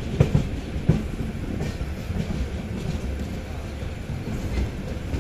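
Passenger train coach running on the rails: a steady low rumble of wheels on track, with a few sharp knocks as the wheels pass over rail joints in the first second.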